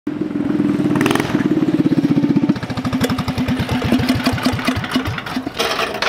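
Mini bike's small single-cylinder engine running at high revs. From about two and a half seconds in, its firing slows, each beat further apart, as it winds down. A short metallic clatter comes near the end.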